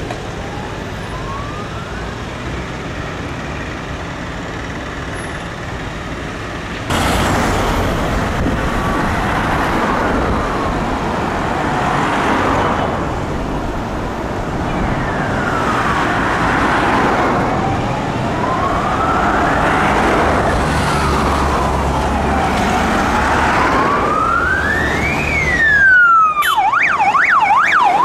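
Siren of a Toyota Hilux fire service rapid-response vehicle on a wail, a slow rise and fall about every four seconds, over road traffic. It gets louder about seven seconds in as the vehicle comes closer, then switches to a fast yelp near the end as it passes.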